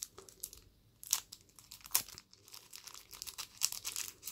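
Small clear plastic bag crinkling and crackling in irregular bursts as fingers work it open.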